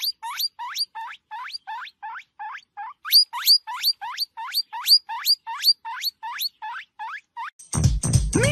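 Guinea pig wheeking: a rapid run of short, high squeaks, each rising sharply in pitch, about four a second with a brief pause partway. Near the end the squeaks stop and a louder, lower sound takes over.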